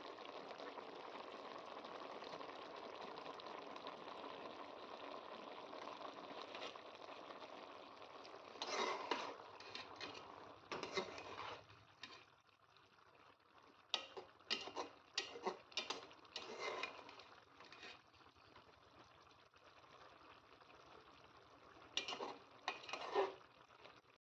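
Food cooking at the table: a steady bubbling hiss that drops away about halfway through, followed by scattered short knocks and clatters.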